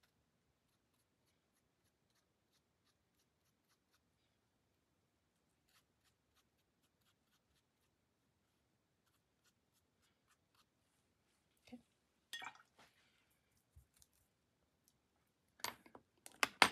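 Faint, quick scratchy ticks of a fine paintbrush flicking thick watercolour grass strokes onto wet paper. In the last few seconds come a few louder short scrapes and knocks.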